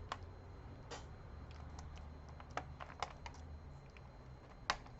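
Scattered small sharp clicks and taps of hands working on an opened laptop while unlatching and pulling a ribbon cable connector, the loudest near the end, over a low steady hum.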